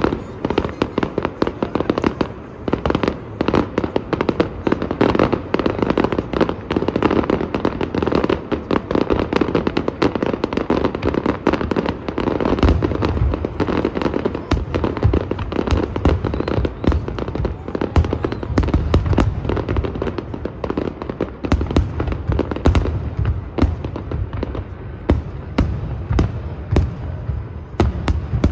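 Aerial firework shells bursting in a dense, continuous run of bangs and crackles. Deeper booms grow much stronger from about halfway through.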